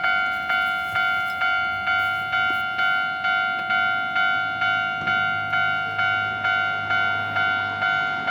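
Japanese railway level crossing alarm ringing its repeating electronic bell tone, about two strikes a second, signalling that a train is approaching and the barriers are down.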